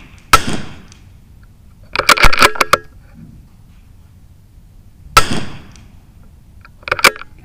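.22LR rimfire target rifle firing two sighter shots about five seconds apart, each a sharp crack. Quick metallic clicks about two seconds in and again near the end are the bolt being worked to eject and chamber a round.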